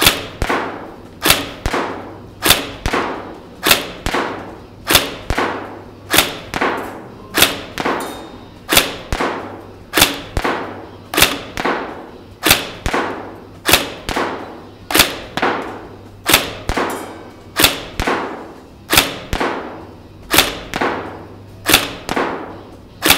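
Tokyo Marui 417 electric-blowback airsoft rifle firing single shots, about one every 1.2 seconds. Each shot is a sharp clack from the recoil-shock blowback, with a quieter knock just after it and a short ringing tail.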